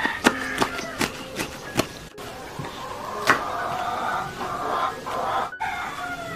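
Knife chopping kangkong leaves on a wooden cutting board: a quick run of about six sharp chops in the first two seconds, and one more a little after three seconds. Chickens cluck in the background through the second half.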